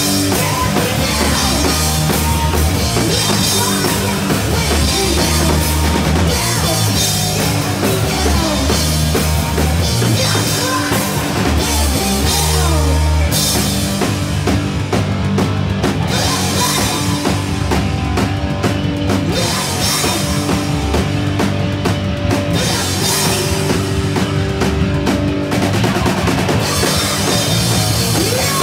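Live rock band playing loud, with electric guitars and a drum kit pounding along, heard from inside the crowd. The riff changes about halfway through.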